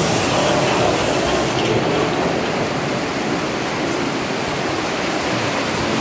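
Steady rushing water of a river rapids raft ride, an even wash of noise with no single event standing out.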